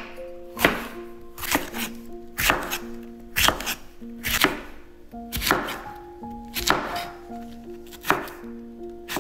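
A kitchen knife chopping through food onto a cutting board: about eight single cuts, roughly one a second, each a sharp knock.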